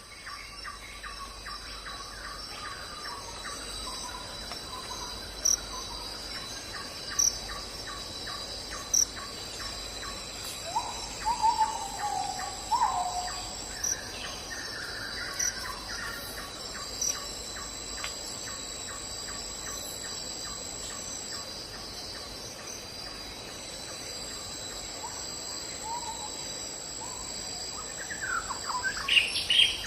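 Night-time forest chorus of insects: several steady high-pitched trills, with a rapid even ticking call running under them. A few short gliding calls, from a frog or a bird, come about eleven to thirteen seconds in and again near the end.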